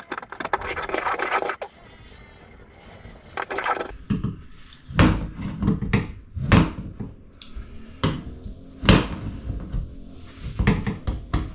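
Hand plane scraping and rasping along a hardwood strip set flush against stone. A long stroke and a shorter one come first, then a run of short, sharp strokes about one a second. The blade is cutting poorly, which the owner puts down to it not being sharp enough.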